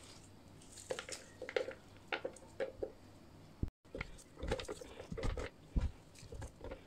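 Sliced onion strips being laid by hand into a plastic container: scattered soft rustles and light taps of onion and fingers against the plastic.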